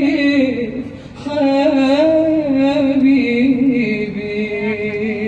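A woman singing an Arabic song into a microphone, drawing out long notes with vibrato, the melody stepping downward through the phrase.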